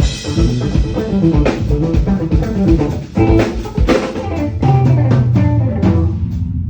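Band music: electric guitar and bass with a drum kit playing, a held low bass note near the end.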